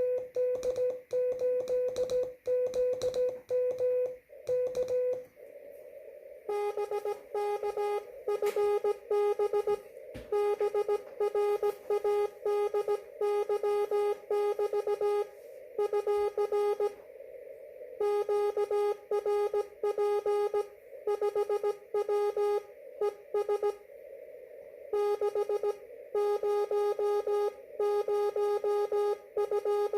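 Slow-speed Morse code (CW) from a ham radio receiver: a keyed tone beeps out dots and dashes for about five seconds, then stops. After a moment of receiver hiss, a slightly lower tone takes over and keeps sending code with short pauses between characters and words.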